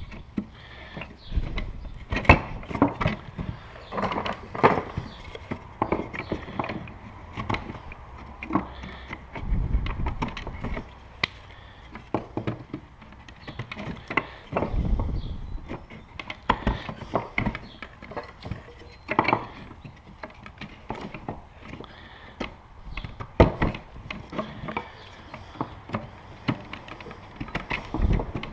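Wooden beehive frame parts clattering and knocking irregularly as they are handled and fitted together, with a few duller thumps.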